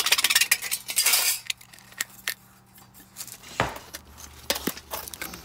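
Aviation snips cutting through a galvanized steel pipe reducer: a fast run of metallic snipping clicks for about the first second. Then quieter, with a few separate metal knocks and clinks as the pipe is handled.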